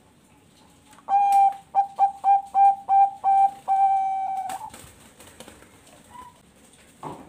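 Zebra dove (Bangkok-bred perkutut) singing one cooing phrase: a long opening note, a quick run of about seven short notes, then a long closing note, about three and a half seconds in all. A faint click comes near the end.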